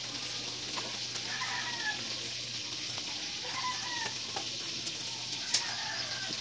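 Chickens clucking: three short calls about two seconds apart over a steady hiss, with one sharp tick about five and a half seconds in.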